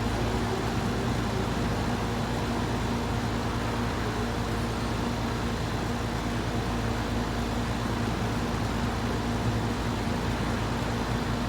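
Trane XR13 central air conditioner's outdoor condensing unit running steadily: a low compressor hum under the even rush of the condenser fan.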